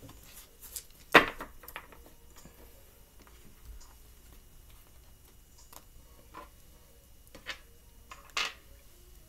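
Tarot cards being handled and laid on a wooden table: a few scattered light taps and card snaps. The sharpest comes about a second in and another near the end.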